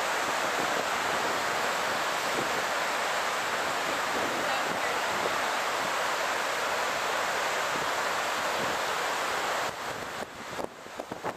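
Water cascading down the walls of the 9/11 Memorial's reflecting pool into the basin: a steady, even rush of falling water. Near the end it drops away and turns uneven.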